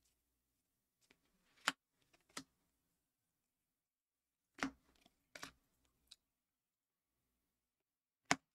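Panini Contenders football trading cards being thumbed through one by one: about half a dozen sharp clicks and snaps of card stock at irregular intervals, with near silence between them.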